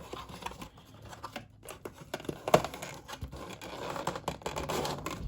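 Hands rummaging in a cardboard box of trading-card packs: rustling and scraping of card and paper packaging with light knocks. There is a sharper knock about two and a half seconds in and denser rustling near the end.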